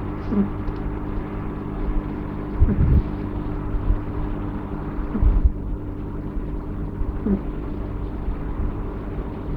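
Persian kitten snoring in its sleep: short soft 'puu' squeaks a few seconds apart over a steady low rumble, with a couple of deeper breathy surges.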